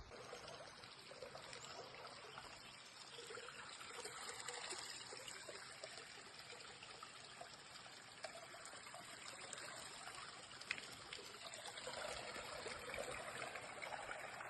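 Faint, steady trickling of a small mountain stream, rising and falling gently in level.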